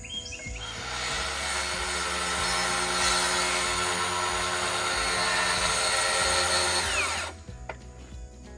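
Power tool running steadily for about seven seconds, then released and winding down with a falling whine.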